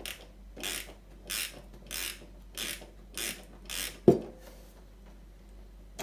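A socket tool turning a quarter-turn ceramic disc tap cartridge anti-clockwise out of the tap body, in a run of about six short strokes, roughly one every two-thirds of a second, then a single sharp knock about four seconds in.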